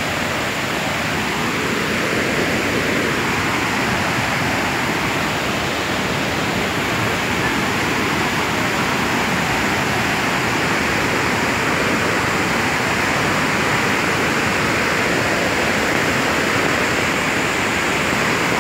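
Muddy river in flash flood rushing over boulders: a loud, steady rush of torrential water.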